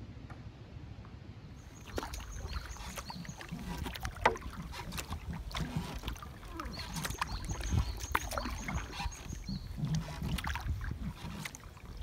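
Kayak being paddled: paddle blades dipping and splashing in the water, with drips and irregular knocks of the paddle against the hull, starting about two seconds in.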